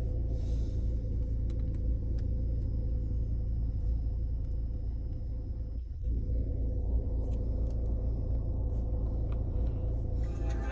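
Steady low rumble of a car engine idling, with a faint steady hum above it and a brief dip about six seconds in.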